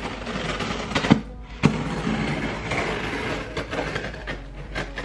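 A cardboard shipping box being cut open with a small blade: two sharp knocks as the blade goes in about a second in, then a scratchy slicing through the packing tape and cardboard.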